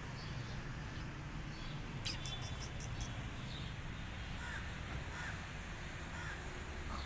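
A few short animal calls over a steady low outdoor rumble, with a quick run of sharp clicks about two seconds in.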